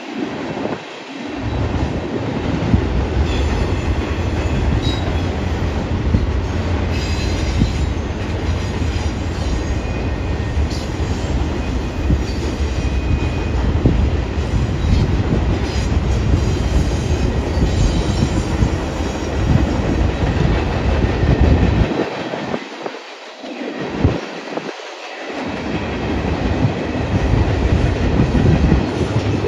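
Union Pacific freight train rolling past, a steady rumble of wheels on rail with faint, high-pitched wheel squeals. The low rumble briefly eases about three-quarters of the way through.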